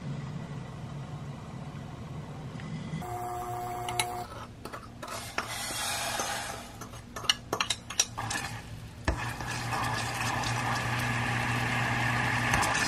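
Sugar and water are scraped from a glass bowl into a hammered stainless steel saucepan on an induction hob, with several clinks and knocks. From about the middle on, the syrup bubbles and sizzles steadily while it is stirred with a wooden spatula, cooking toward caramel.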